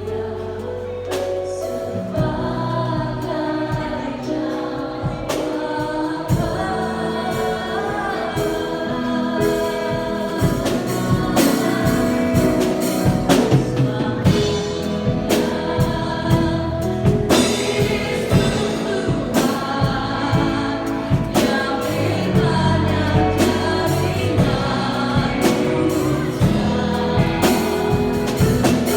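A choir singing a Christian gospel song with instrumental accompaniment and a steady beat of percussion.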